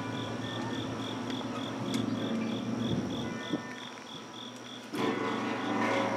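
The world's largest wind chime, with giant hanging metal tubes, ringing in long sustained tones at several pitches. About five seconds in, a fresh strike of the tubes makes the ringing suddenly louder. An insect chirps steadily about three times a second throughout.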